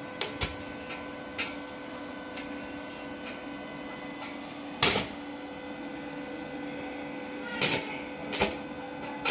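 Stick-welding set-up with an X-Machine MMA-265 inverter welder: a steady electrical hum, broken by a few sharp crackles as the electrode strikes an arc on the steel. The loudest crackle comes about five seconds in, with smaller ones near the start and near the end.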